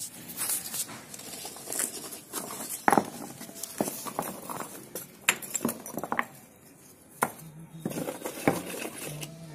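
Irregular clinks, knocks and scrapes of hand bricklaying: broken brick pieces and a steel mortar pan being handled and set down, with the sharpest knock about three seconds in.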